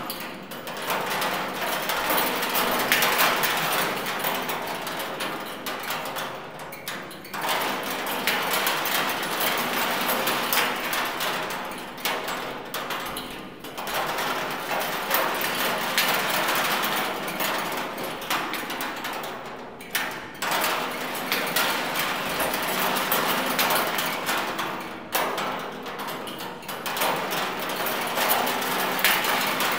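Motor-driven kinetic sound sculpture: spoons on wires clattering and rattling against a steel oil drum in a dense, continuous metallic racket. It drops away briefly about every six seconds before building again.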